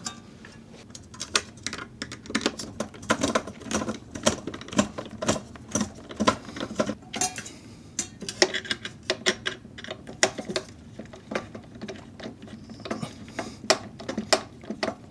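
Screwdriver tightening the CPU cooler's mounting screws until snug: an irregular run of small clicks and taps, several a second, with a short lull about seven seconds in.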